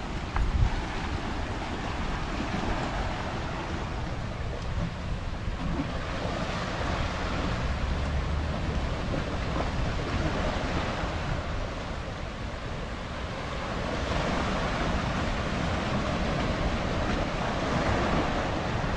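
Pacific surf breaking and washing up the beach, a steady hiss that swells and eases in long surges of several seconds. Wind buffets the microphone with a low rumble, and there is a brief bump about half a second in.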